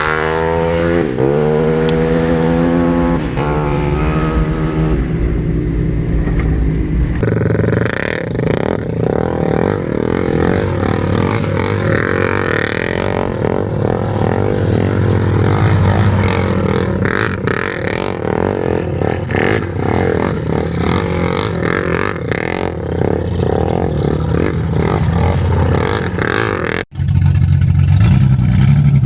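Car engine revving up in several rising sweeps, then running steadily under load with rattling and clattering, cutting off abruptly for a moment near the end.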